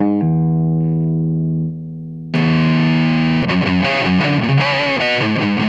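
Electric guitar played through a simple breadboarded transistor-and-diode clipping distortion circuit into a small mic'd 30-watt bass amp. A held distorted chord rings and fades. About two seconds in, a loud chord is struck, and quick picked notes follow, with long sustain.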